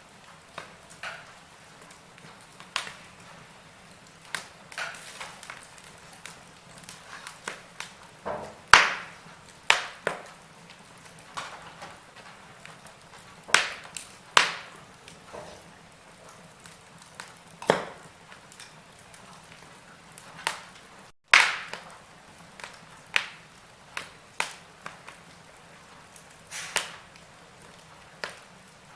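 Wood fire in a fireplace crackling: irregular sharp pops and snaps, a few much louder than the rest, over a faint steady low hum.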